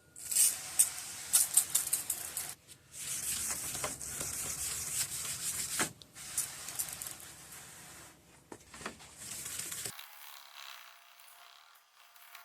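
Hand wet-sanding of a plastic headlight lens with 1000-grit sandpaper: a raspy rubbing hiss in passes, with short pauses between them. About ten seconds in it gives way to a much quieter background with a faint steady hum.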